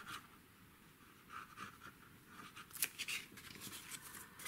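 Quiet rustling of a small sheet of paper being folded and handled, with a few light taps of a plastic glue bottle, the sharpest about three seconds in.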